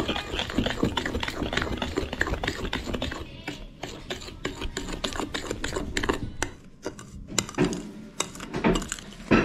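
Metal spoon stirring thick cake batter in a ceramic bowl, scraping and clicking against the bowl in many quick, repeated strokes.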